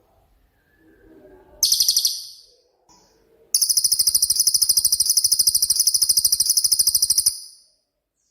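Cililin songbird singing its rapid 'nembak' song: a short burst of fast, high-pitched notes, then a long, even trill of rapid high notes lasting almost four seconds that stops abruptly.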